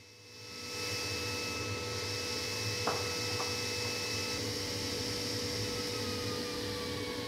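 A sliding-table panel circular saw starting up and running up to speed within about a second, then running steadily with a high whine and hiss. A sharp click comes about three seconds in, and near the end the whine begins to slide slowly down in pitch.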